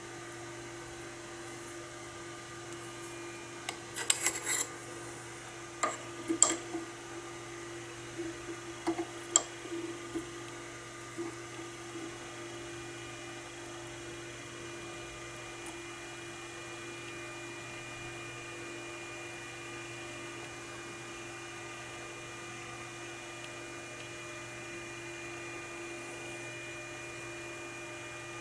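Small metal clicks and taps as a micrometer is closed onto thread-measuring wires held in a screw thread. The clicks bunch between about four and twelve seconds in, over a steady hum.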